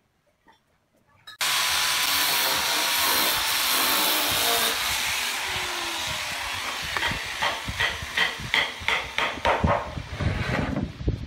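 Angle grinder with a sanding disc starting suddenly about a second and a half in and running on the wood with a steady hiss. In the second half it works in quick, regular strokes, about three a second.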